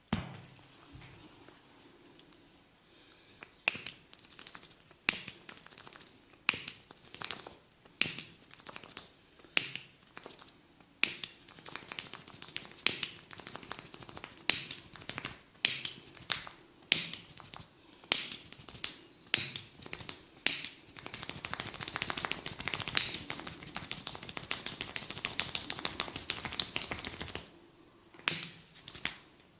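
A barber's hands making sharp snapping slaps on a client's head and hair during a head massage, about one every second and a half. About two-thirds of the way through they give way to several seconds of fast, dense tapping, then a few more snaps near the end.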